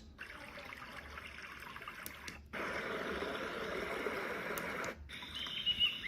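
Zealot Z6 white noise machine playing its built-in water sound tracks through its small speaker, switched from track to track. A faint trickling-water track gives way after about two and a half seconds to a louder, fuller stream sound. About five seconds in, a track with high chirping begins.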